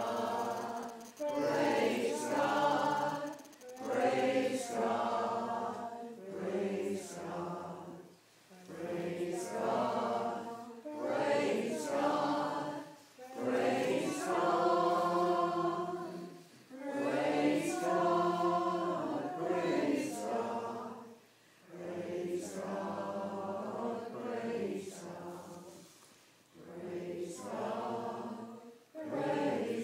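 Small church choir singing together, in phrases of a second or two with short breaks between them.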